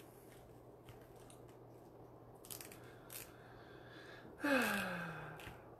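Faint crinkling of pink deco mesh being worked by hand on a wreath board, twice briefly in the middle, over a low steady hum. Near the end, a person's drawn-out vocal sound slides down in pitch for about a second, like a sigh or groan.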